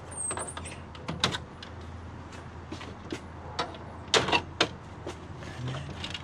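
Plastic grille clips on a Mk2 Golf being worked loose by hand: irregular sharp clicks and knocks of plastic, loudest about a second in and in a quick cluster a little past halfway.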